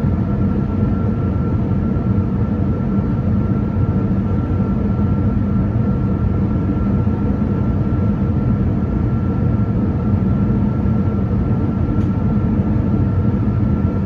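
Electric multiple-unit commuter train rolling along the platform: a steady loud rumble with a thin, constant high whine.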